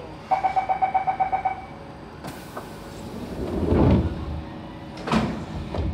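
Siemens C651 train's door-closing chime, a rapid string of beeps lasting about a second and a half, then the doors sliding shut and closing with a knock about five seconds in.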